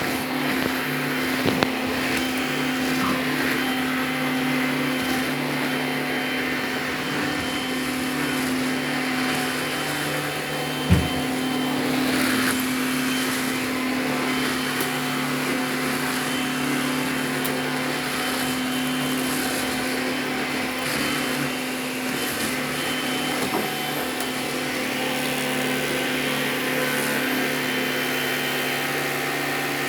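Vacuum cleaner motor running steadily, with a single sharp knock about eleven seconds in.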